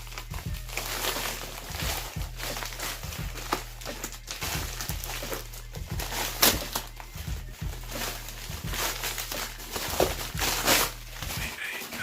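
Packaging being opened by hand: irregular crinkling, rustling and tearing of wrapping with many short clicks and scrapes, the sharpest about six and a half seconds in, over a steady low electrical hum.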